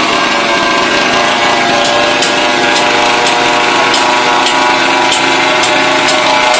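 A small engine or motor running at a steady speed, with a light tick about twice a second from about two seconds in.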